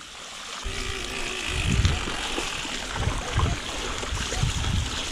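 Bicycle riding through wet ground and puddles: a steady hiss of tyres and water spray, with irregular gusts of wind buffeting the microphone.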